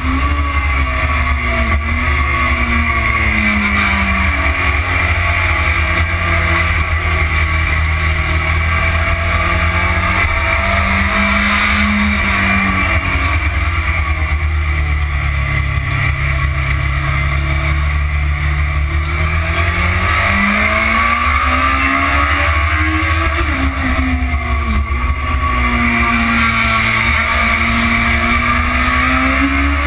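Motorcycle engine heard from a tank-mounted onboard camera, its note rising and falling with the throttle: it sinks low through the middle and climbs back up about two-thirds of the way through. A heavy rumble of wind on the microphone lies under it.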